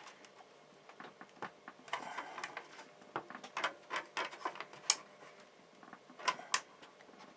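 Plastic clicking and creaking as a switch is pushed down into a tight-fitting 3D-printed bezel, with scattered small clicks and a few sharper ones about five and six and a half seconds in.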